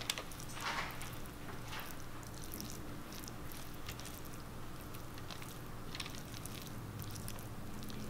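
Silicone basting brush dabbing barbecue sauce onto cooked beef ribs, making soft, wet, sticky strokes. The clearest strokes come twice in the first two seconds and once about six seconds in, over a steady low hum.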